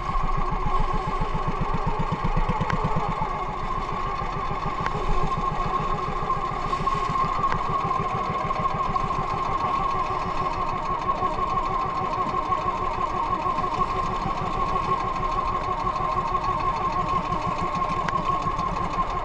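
Small engine of a motorized outrigger fishing boat running steadily at constant speed while under way, with water rushing along the hull.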